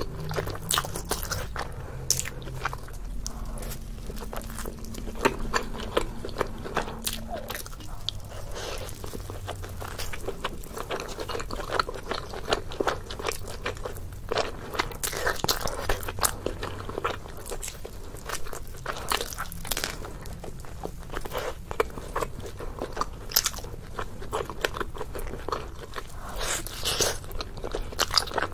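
Close-miked chewing and biting of deep-dish pizza: crust crunching and wet mouth clicks, many quick irregular clicks one after another.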